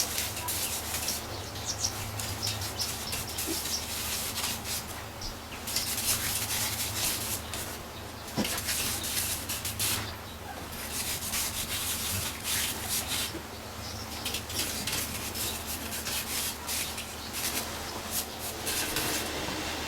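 Electric drum sander working over a hand-hewn log: a rough sanding rasp that swells and eases with each pass, with short lulls, over the steady hum of the motor.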